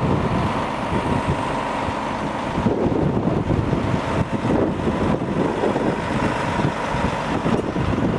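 Volvo crane truck's diesel engine running steadily to drive the truck-mounted crane's hydraulics, with a faint steady whine above the rumble.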